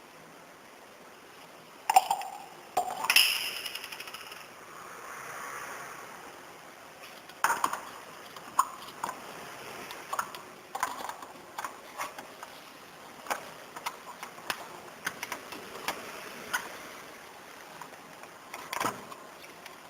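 Clicks and taps of small parts being handled while a device is taken apart or put together. There are two louder knocks about two and three seconds in, the second ringing briefly.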